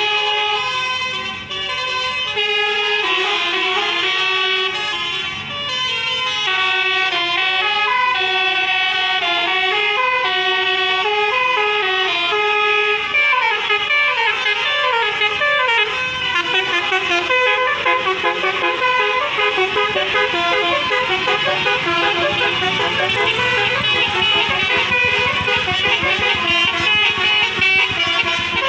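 Basuri-type multi-tone 'telolet' bus air horns playing melodies, note after note without a break. The notes come faster in quick runs from about halfway through.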